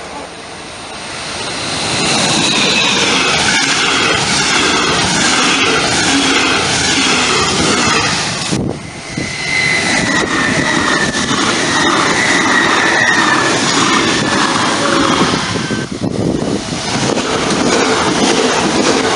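Electric trains passing close by, one after another with abrupt cuts between them about 8.5 and 16 seconds in: a DB class 146 electric locomotive hauling a regional express, then two coupled class 423 S-Bahn units, then class 442 Talent 2 units. Each pass is a steady rumble and rush of wheels on rails. A high whine slowly falls in pitch during the first two passes.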